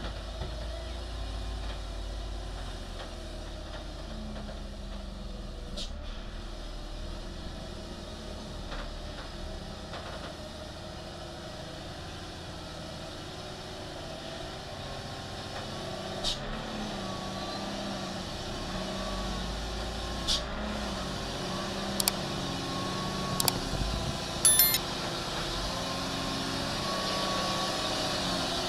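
Engine of a sand-laden light truck running steadily as it inches toward the camera, growing louder as it comes near. Several sharp clicks or knocks sound in the second half.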